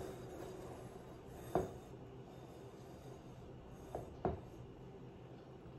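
Fruit being handled and set into a glass bowl: faint rubbing and three light knocks, one about a second and a half in and two close together near the end.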